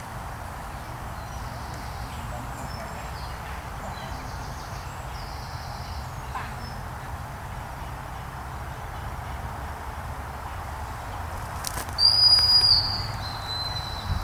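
Dog-training whistle: one loud, shrill blast about a second long near the end, then a few shorter, fainter toots, against steady outdoor background noise.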